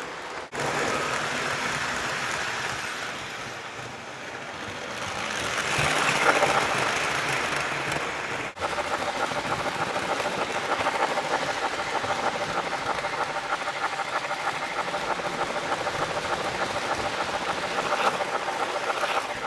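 MTH Blue Comet model train rolling along its track: a steady rattling rumble of wheels and motor with a fast, even clicking rhythm. The sound briefly drops out about half a second in and again about eight and a half seconds in.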